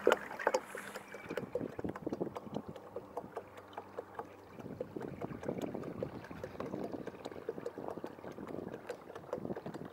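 Water splashing and lapping against the hull of a moving kayak, a busy run of small irregular splashes. A faint steady hum underneath stops about four and a half seconds in.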